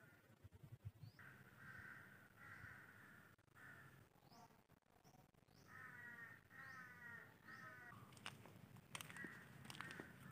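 Faint bird calls: two runs of short repeated calls, each call about half a second long, with brief higher rising chirps in between and a few sharp clicks near the end.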